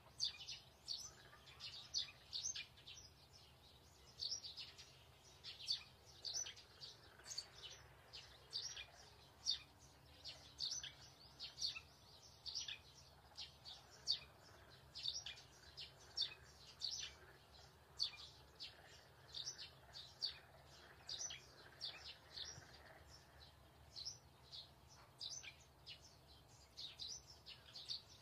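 Birds chirping: many short, high chirps, several a second, with no break.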